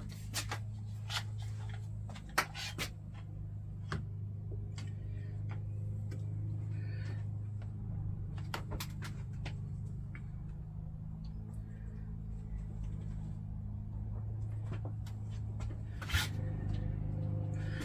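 Clamps and glued wooden pieces being handled and tightened: scattered clicks and knocks, over a steady low hum.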